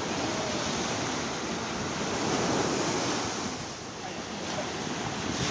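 Sea waves washing onto the shore, swelling about two seconds in and easing off before building again, with wind on the microphone.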